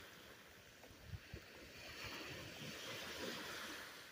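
Small surf breaking and washing on a sandy beach, with a steady wash of wind noise, and two soft low thumps about a second in.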